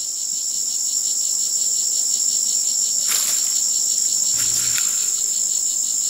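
Steady, high-pitched chorus of insects, with a brief faint noise about three seconds in.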